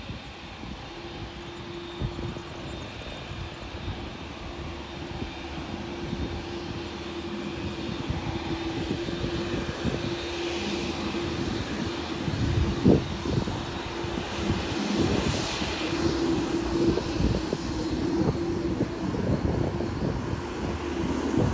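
Jet airliner engines growing steadily louder over about twenty seconds, with a steady droning tone over a low rumble.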